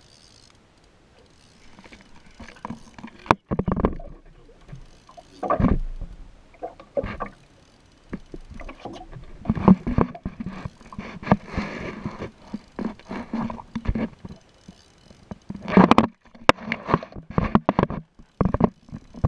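Water slapping and splashing against a small boat's hull in uneven bursts, with a couple of sharp knocks.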